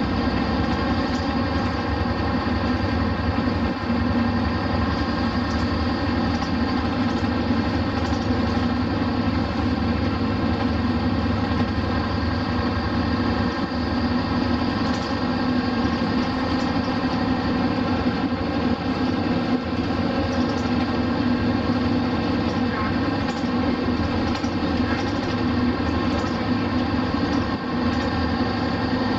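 Diesel engine of a Hino Blue Ribbon RC monocoque bus running steadily while the bus is under way, heard from inside the bus. The engine note holds an even pitch throughout.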